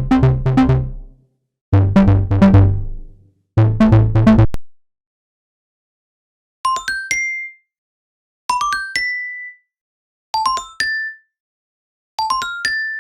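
Music made of short phrases. First come three quick runs of low, pitched, struck notes. After a pause of about two seconds come four quick runs of high, bell-like dings, each a few notes that step up in pitch.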